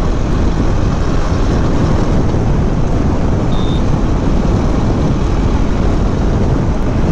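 Steady riding noise from a KTM Duke 390 motorcycle under way: constant wind rush over the camera's microphone mixed with the engine's running noise.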